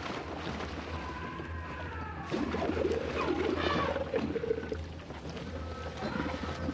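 African elephants calling: moaning calls that glide up and down in pitch, over a steady low hum.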